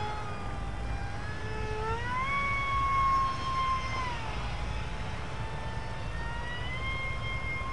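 Brushless electric motor and propeller of a Mini Swift RC flying wing making a full-throttle pass: a high whine that rises in pitch about two seconds in, drops around four seconds, and rises again near the end.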